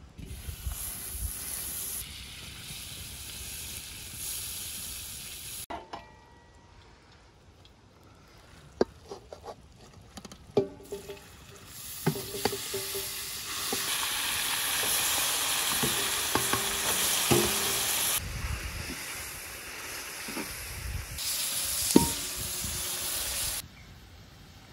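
Butter sizzling in a large metal pan, then, after a quieter stretch with a few clicks and knocks, minced meat filling is tipped in and fries with loud, steady sizzling while it is stirred.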